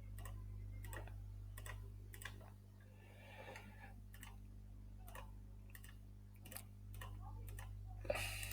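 Faint, regular ticking clicks, about three every two seconds, over a steady low hum, with a short louder rustle near the end.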